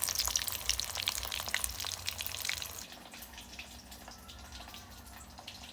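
Food frying in hot oil in a pan: a steady sizzle full of fine crackles, louder at first and dropping to a quieter sizzle about halfway through.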